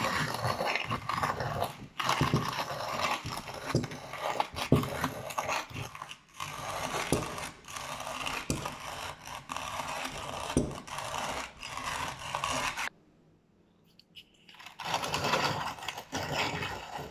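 Coffee beans being crushed in an antique coffee grinder, a steady gritty crunching and scraping of the burrs. It stops for a couple of seconds near the end, then starts again.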